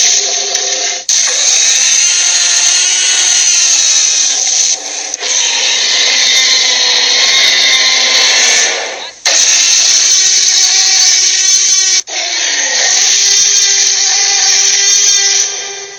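Sharptooth's roars, the Tyrannosaurus-like villain's sound effect from the animated film: a string of about five long, harsh, rasping roars, each cut off abruptly into the next.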